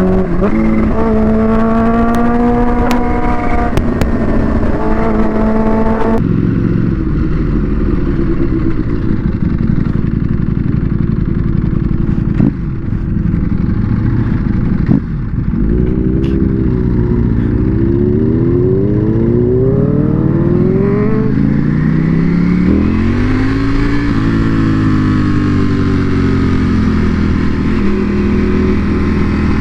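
Supercharged Kawasaki Ninja H2 inline-four with a Vandemon exhaust, accelerating hard through the gears: the engine note climbs in pitch again and again, dropping back at each shift. There is a sudden change in the sound about six seconds in, and two sharp breaks around twelve and fifteen seconds.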